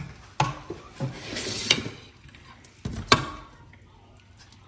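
A silicone serving spoon scooping ground-meat sauce out of a pot: a few light knocks against the pot and plate and a brief scrape.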